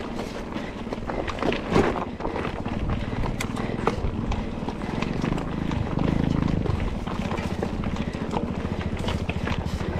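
Mountain bike ridden hard over a rough dirt trail: the bike rattling with many sharp knocks as the wheels hit bumps, over a steady rush of tyre and wind noise.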